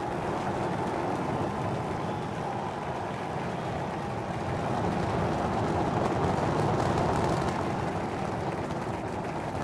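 Starship's Super Heavy booster lifting off on its 33 Raptor engines: a dense, steady rumble that grows louder about five seconds in.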